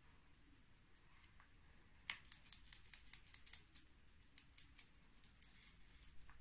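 A makeup brush working a pressed powder compact: a click about two seconds in, then quick, light scratchy strokes of the bristles on the powder, several a second.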